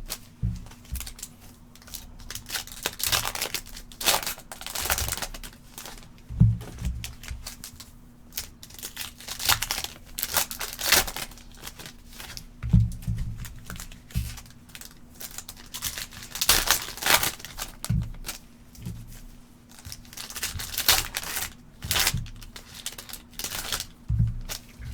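Foil wrappers of trading card packs being torn open and crumpled, an irregular crinkling and tearing with soft handling thumps every second or two. A faint steady hum sits underneath.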